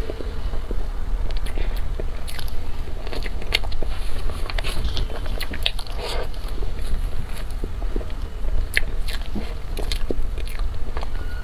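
Close-miked eating of soft cream cake: a steady run of irregular chewing clicks and mouth sounds, over a low steady hum.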